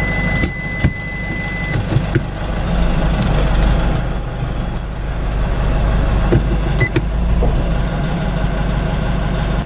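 Aftermarket parking-sensor buzzer giving one continuous high tone, its zero-distance danger warning, until it cuts off about two seconds in. Under it the Nissan Navara pickup's engine runs steadily, a little louder for a few seconds after the tone stops, with a few light clicks.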